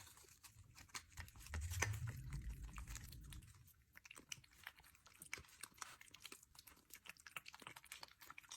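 A cat eating soft mousse-textured wet food: faint, quick chewing and licking clicks throughout, with a low rumble for about two seconds near the start.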